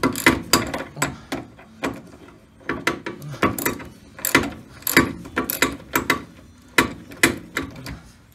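Hand ratchet clicking in quick runs of strokes as a lower control arm bolt is backed out of a VW Super Beetle's front suspension, with brief pauses between runs.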